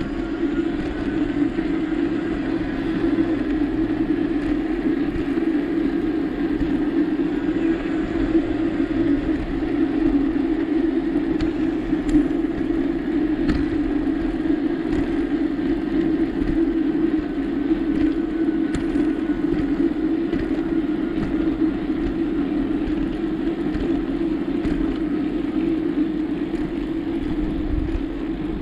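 Steady rolling noise of a bicycle being ridden, heard from the bike: a constant hum from the tyres on the path, with a few light clicks along the way.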